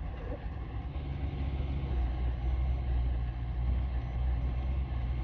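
Upgraded Lynx eight-wheeled all-terrain assault vehicle driving under throttle, its engine running with a steady low rumble that swells over the first second or two and then holds.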